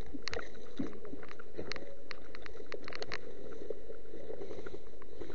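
Dry leaves and twigs crackling and rustling as someone pushes through leafy undergrowth: scattered sharp clicks over a steady hiss.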